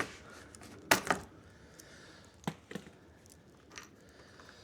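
A few sharp clicks and knocks of small metal hardware being handled as a cotter pin is pulled and a lawn mower wheel is worked off its axle, with the loudest clatter about a second in.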